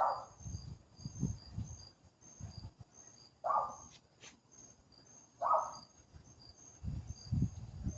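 Crickets chirping in an even, repeating rhythm, with a short, louder sound three times, about two seconds apart, and some low rumbling thumps.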